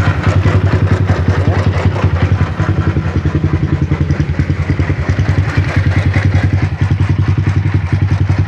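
Yamaha Jupiter MX's single-cylinder, liquid-cooled engine idling with an even pulsing beat and a rough, raspy note like parts rubbing together. The mechanic suspects a worn bearing, most likely in the radiator water pump.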